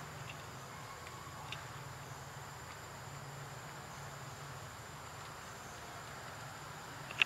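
Forest ambience with a faint, steady, high-pitched insect drone, a few faint ticks, and one sharp click near the end.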